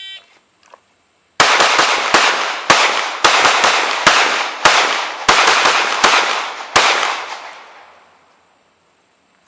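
A shot timer beeps once. About a second and a half later a pistol drawn from concealment fires a rapid string of about ten shots over some five seconds, each crack ringing out and the echo fading away after the last shot.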